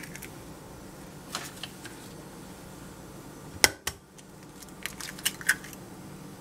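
Eggs being cracked into a small china bowl: one sharp tap of an eggshell on the bowl's rim a little past halfway, with a few faint clicks of shell being handled and pulled apart around it.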